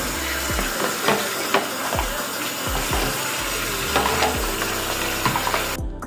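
A steady, loud hiss over background music with a regular beat; the hiss cuts off suddenly near the end, leaving the music alone.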